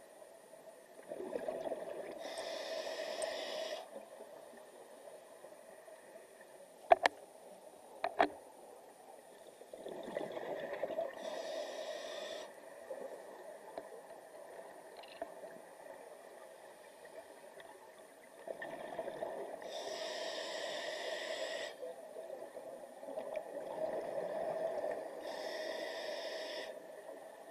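Scuba regulator breathing underwater: about four slow breaths, each a few seconds of hiss and gurgling exhaled bubbles, with long pauses between. Two sharp clicks come a little after the first breath.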